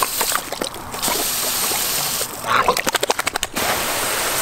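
Garden hose spray nozzle hissing in spurts, cutting off twice, as water is sprayed at an Olde English Bulldog biting at the stream. In the longer pause, about two and a half seconds in, there is a rapid run of short wet snaps and splutters with a couple of brief snorts.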